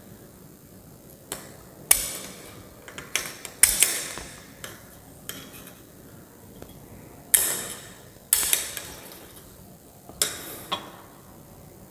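Scissors snipping through the thin wires of galvanized cage mesh: about a dozen sharp metallic clicks at irregular intervals, some in quick pairs, each with a brief ringing tail.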